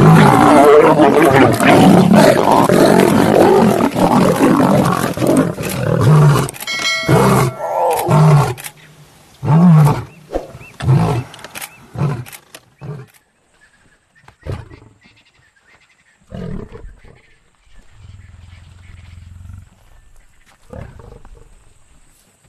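Lions snarling and roaring as they fight. The sound is loud and unbroken for the first six seconds or so, then comes as separate growls and roars, which grow fewer and quieter after about thirteen seconds.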